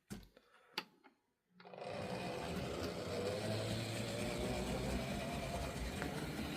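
HO-scale 0-10-0 model locomotive's electric motor and worm-gear drive whirring as it runs along the track, starting suddenly about a second and a half in after a few faint clicks, then running steadily.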